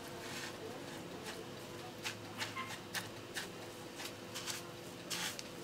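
Fingers pressing and patting a chicken strip into coarse, oiled breadcrumbs on a plate, making faint, irregular crumbly rustles and soft pats.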